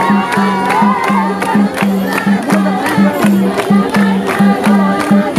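Nepali Teej folk dance music played loud, driven by a fast, even drum beat of about four strokes a second, with crowd noise underneath.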